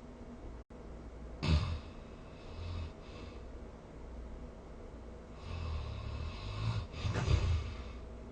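A sleeping person snoring: a loud snore about one and a half seconds in, a softer breath around three seconds, then a longer snoring breath and a second loud snore near the end.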